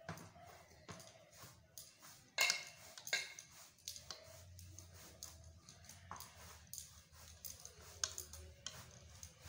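Steel ladle clinking and scraping against a steel plate while spooning thick curry gravy over boiled eggs: a scatter of light clicks, with two louder clinks a little after two and three seconds in, over a faint low hum.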